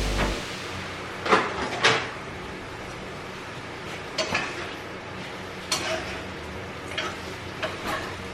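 Kitchen pots and utensils clinking and knocking: about seven short, sharp clinks at uneven intervals over a faint steady background hiss.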